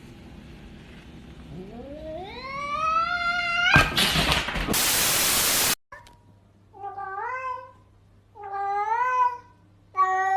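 A cat's long yowl rising steadily in pitch, ending in a harsh noisy burst. Then comes about a second of loud static hiss, followed by three drawn-out meows spaced about a second and a half apart.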